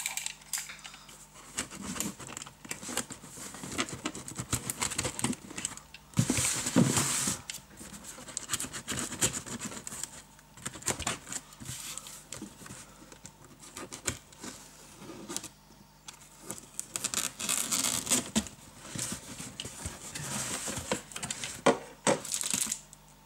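Cardboard shipping box being opened by hand: fingers scratching and tapping on the cardboard, with packing tape cut and pulled loose in two longer rasping stretches, about six seconds in and again near eighteen seconds.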